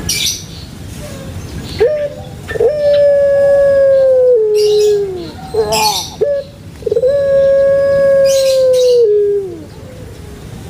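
Puter pelung dove (Barbary dove, Streptopelia risoria) cooing: two long drawn-out calls. Each opens with a short rising note, holds a steady tone, then steps down and falls away at the end.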